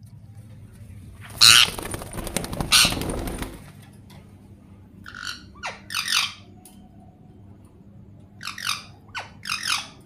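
A pet parakeet calling: a loud, rough screech lasting about two seconds, starting just over a second in. Then come two groups of three short squawks, each sliding down in pitch.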